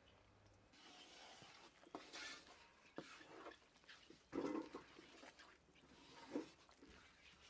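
Wooden spatula stirring and scraping a wet flour paste in a large metal pan: faint, irregular scrapes and soft knocks, the loudest about four and a half seconds in.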